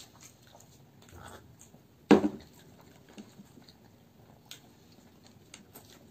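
People eating french fries by hand: soft chewing and small clicks of fingers and fries against plates, with one loud sharp thump about two seconds in.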